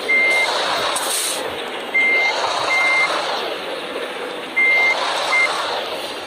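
Five short, high-pitched electronic beeps at uneven intervals: two close together twice and one at the start. Underneath runs a steady vehicle noise.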